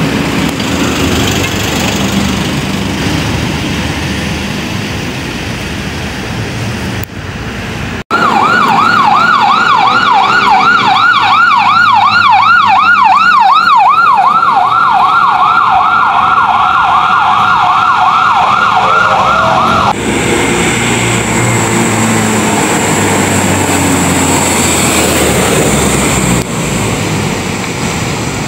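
Vehicle engines and road noise, then about eight seconds in a fire truck's electronic siren starts abruptly and very loud in a fast yelp, rising and falling about three times a second. It stops suddenly about twenty seconds in, leaving the truck's engine and traffic.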